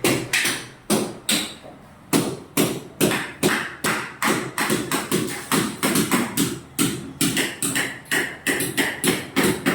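Repeated hammer blows at a steady pace of about two to three a second, quickening a little near the end.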